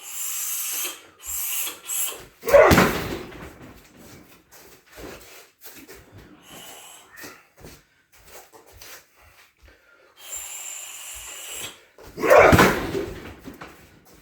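Two heavy shin kicks thudding into a Thai pad strapped to a car tyre, about ten seconds apart, each with a short ringing tail. Sharp hissing breaths come before the kicks.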